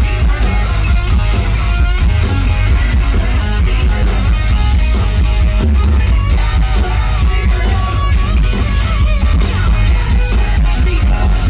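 Live hard-rock band playing loud through a PA: overdriven hollow-body electric guitar over bass guitar and drum kit, with a heavy, booming low end.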